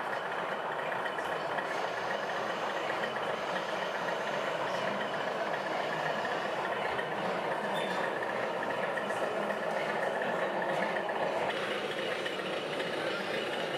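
Model railway trains running on an exhibition layout, heard over the steady background noise of a busy exhibition hall. The sound thins a little near the end.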